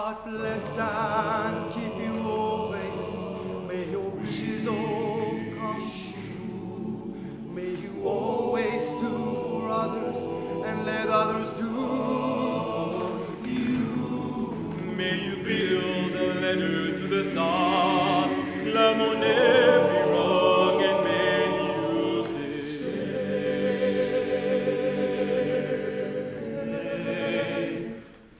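Large male choir singing together, several voice parts at once.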